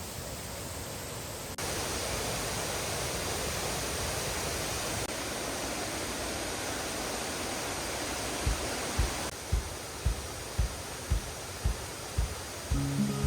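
Steady rush of heavy rain and fast-running floodwater, changing level at a couple of cuts. From past the middle, a regular run of low thumps comes about twice a second.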